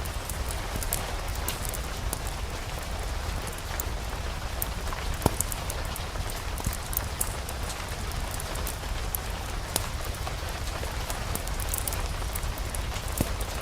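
Steady rain falling, with scattered sharp clicks of drops and a constant low rumble underneath.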